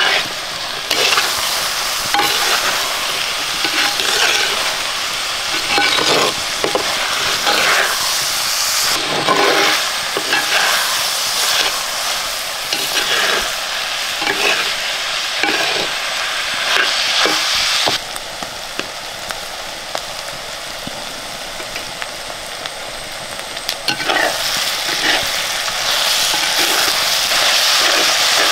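Food sizzling in hot oil in a pan while a spoon or ladle stirs it, with repeated scraping strokes against the pan. About two-thirds of the way through the stirring eases off for several seconds, leaving a quieter sizzle, then the stirring picks up again.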